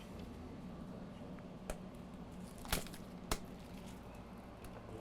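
Three brief sharp clicks, the first about two seconds in and two more about a second later, over a steady low hum.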